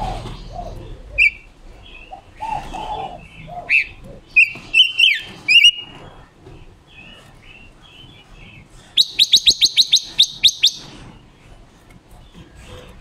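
Silver-eared mesia calling: scattered sharp chirps and short warbled phrases, then, about nine seconds in, a quick run of about ten sharp descending notes.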